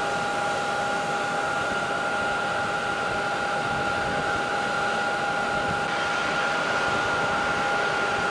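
Steady aircraft turbine noise: an even rushing hiss with a high whine of two held tones, unchanging throughout.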